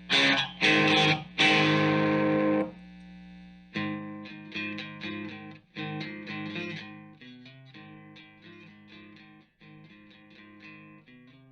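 Distorted electric guitar played through an amp and speaker cabinet: three loud chord stabs, then a quieter run of single picked notes, each ringing and dying away, stopping abruptly at the end.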